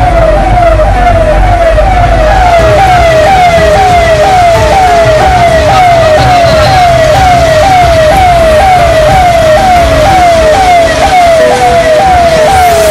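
Electronic siren sounding a repeating falling wail, about two downward sweeps a second, steady and loud over a low rumble.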